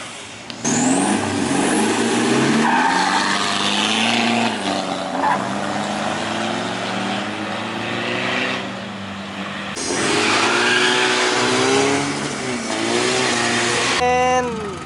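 Turbodiesel pickups and SUVs accelerating hard in drag racing passes, engines revving with their pitch rising and falling again and again. The sound changes abruptly a few times between passes.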